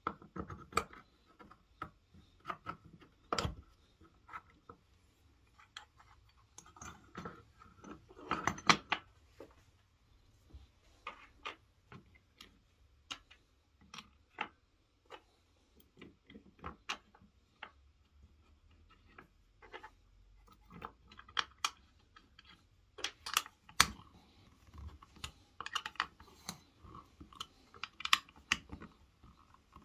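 Irregular clicks, taps and knocks of small metal and plywood parts being handled and fitted together by hand: a bolt, washer and wooden blocks going into a plywood jig with steel guide rods, with a few louder knocks about 8 and 24 seconds in.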